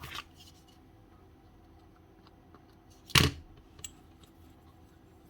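A few handling noises of hammer parts on the workbench: a short click at the start, then about three seconds in a single brief scraping clatter of a metal part being moved or set down, followed by a faint tick. Otherwise quiet room tone.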